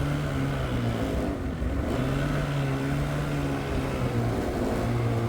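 Snowmobile engine running at a steady riding speed: a low drone that dips and rises slightly in pitch, over a steady rushing noise.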